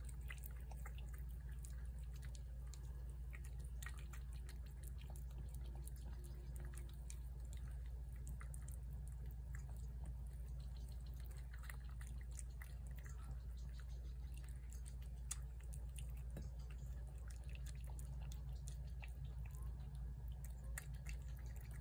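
A cat eating shredded chicken from a plate: many small wet chewing and smacking clicks, scattered irregularly over a steady low hum.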